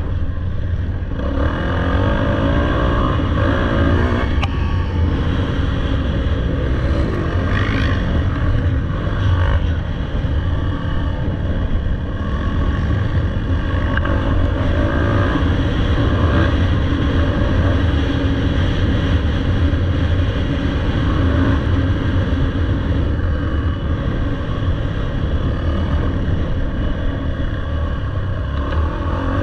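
Dirt bike engine running steadily under the rider's throttle, its pitch rising and falling briefly a few times.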